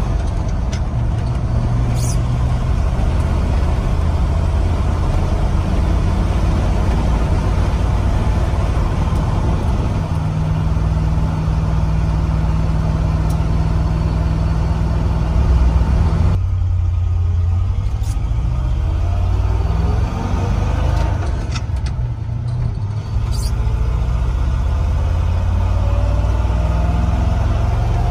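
A 1976 GMC K10 pickup's 350 small-block V8 and road noise, heard from inside the cab while driving. About sixteen seconds in the sound suddenly eases off. Over the last several seconds the pitch rises steadily as the truck picks up speed.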